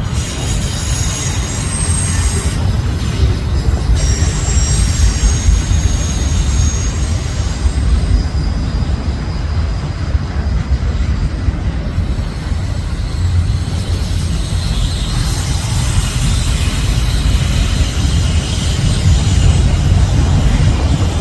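A train rolling past: a steady low rumble of wheels on rail, with thin high wheel squeals that come and go.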